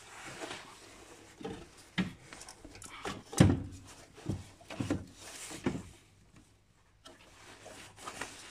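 Irregular metallic clunks and knocks as a 2010 Honda CR-V alternator is worked loose and pulled out of the engine bay. The loudest knock comes about three and a half seconds in, and it goes quieter after about six seconds.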